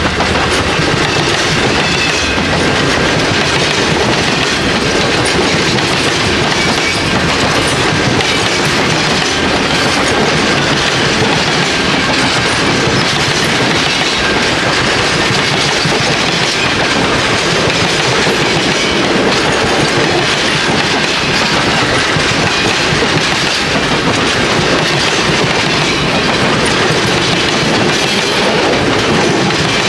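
Passenger cars of a Norfolk Southern office car special train passing close at speed: a steady, loud rush of steel wheels on rail.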